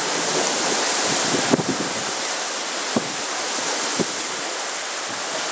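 Steady rush of wind on the microphone and water along the hulls of a sailing catamaran under way in a strong breeze, with three short knocks about one and a half, three and four seconds in.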